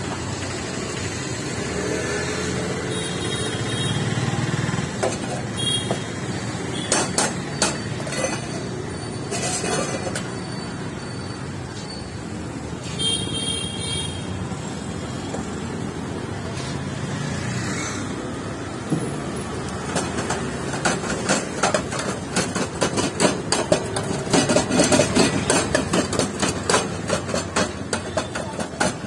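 Metal spoon clinking and scraping rapidly against steel cups and bowls as sweet corn is stirred and mixed, thickest in the second half. Steady street traffic noise runs underneath.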